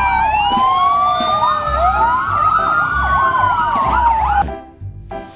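Several emergency-vehicle sirens wailing and rising and falling over one another, cutting off about four and a half seconds in.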